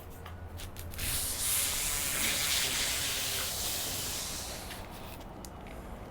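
Aluminum bottom bar being slid along the hem of a roll screen's fabric, a long rubbing hiss. The hiss swells about a second in and eases off near the end, with a few light clicks around it.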